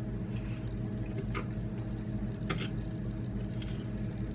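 A spoon clicking against a small bowl a few times, about once a second, while stirring a liquid marinade, over a steady electrical hum.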